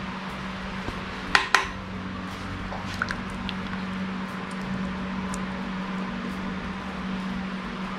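Metal spoon clinking and scraping against a metal pot while thick cream soup is spooned out into a plate, with two sharp clinks about a second and a half in and a few light ticks after. A steady low hum runs underneath.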